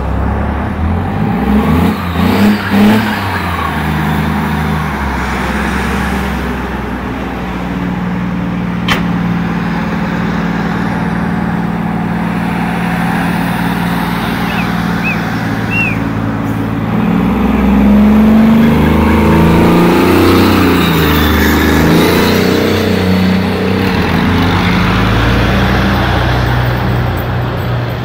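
Engines of a column of heavy military vehicles passing close by on the street: a steady low drone that grows louder a little past halfway.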